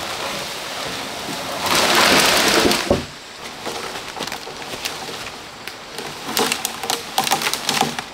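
Hewn wooden beams being handled on a leaf-littered slope: a loud rushing scrape about two seconds in that ends in a low thud, then footsteps crunching through dry leaves with scattered light knocks of timber.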